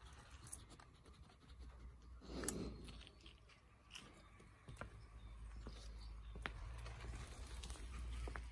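Faint scratching and scattered light clicks, with one louder scrape about two and a half seconds in, over a low steady rumble.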